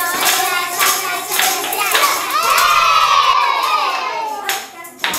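A group of young children shakes maracas and tambourines in rhythm. About two seconds in they break into a long shout-sung note together that slowly falls in pitch.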